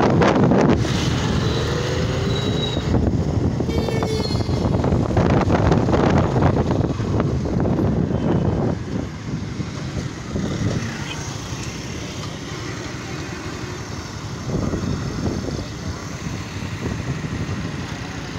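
Motorcycle riding in city traffic: its engine running and wind rushing over the microphone, with a few short high tones in the first few seconds. After about nine seconds the noise drops as the bike slows at a junction.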